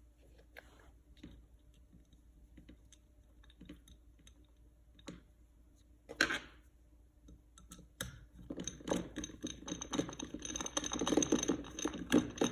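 Small scattered clicks of hands handling a ground wire and screw on an electrical floor outlet receptacle, with one louder knock partway through, then a dense run of rapid clicking and rattling near the end as the parts are worked into place.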